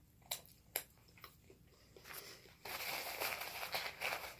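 Handling take-out food packaging close to the microphone: two sharp plastic clicks near the start, a few small ticks, then about a second and a half of dense rustling near the end.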